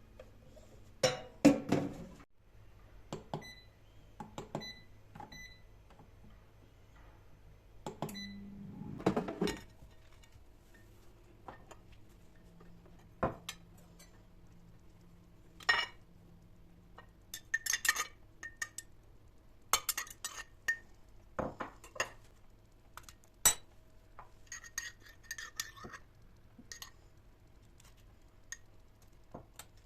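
Kitchen dishes, glassware and cutlery clinking and knocking against each other and the counter, in scattered taps and short clatters with pauses between, some clinks ringing briefly.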